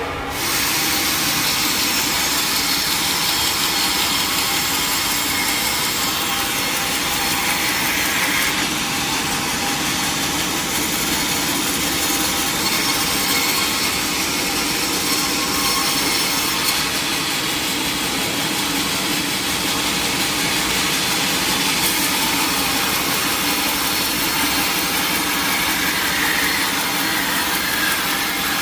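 Sawmill saw cutting through teak: a loud, steady cutting noise that sets in about half a second in and holds evenly.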